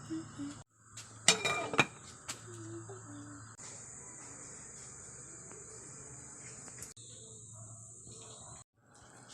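Steady high-pitched chirring of insects, with a brief clatter of dishes and cutlery about a second in.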